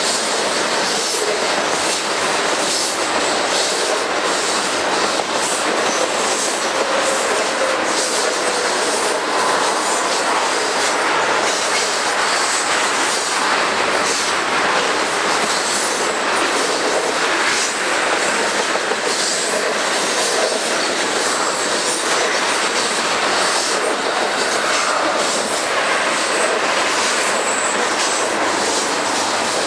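A freight train of railroad tank cars rolling steadily past, with continuous wheel-on-rail noise and repeated light clicks from the wheels.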